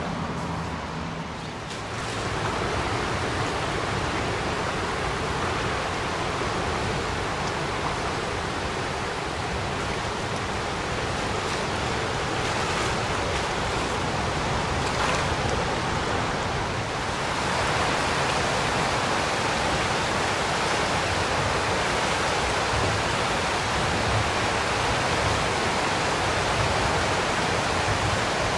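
Floodwater of the Fitzroy River rushing past submerged trees and banks: a steady, even rushing of fast water. It grows louder and fuller a little past halfway.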